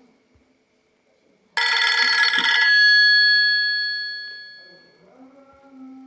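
A Nokia Asha 210 ringtone: a single bright, bell-like chime strikes suddenly about one and a half seconds in and rings away over about three seconds. A faint low tone begins near the end.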